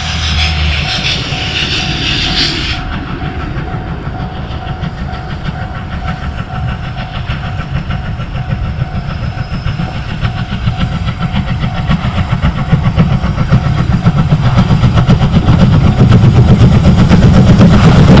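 C10 8, a JNR Class C10 tank steam locomotive, working hard as it approaches, its exhaust beats fast and even and growing steadily louder. A steam hiss from low at the front of the engine cuts off about three seconds in.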